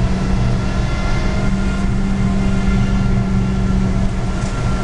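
Suzuki Swift's engine pulling at steady, unchanging revs, heard inside the cabin over road and tyre noise.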